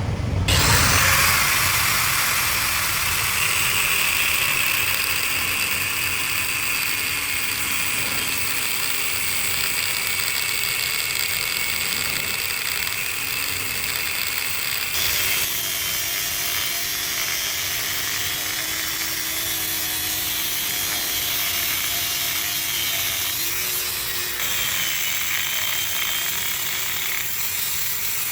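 Power tool running steadily against steel, a continuous hissy grinding noise with a faint high whine. Its character shifts about halfway through and again near the end.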